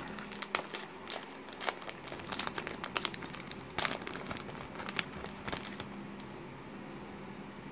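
Foil wrapper of a Panini Threads trading card pack crinkling as it is handled and pulled open. The sharp crackles die away about six seconds in.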